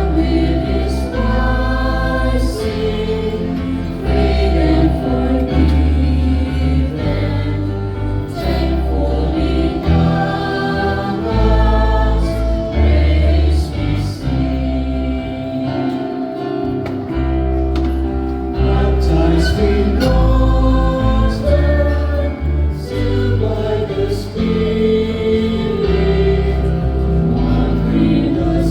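Church choir singing a hymn over instrumental accompaniment with sustained bass notes.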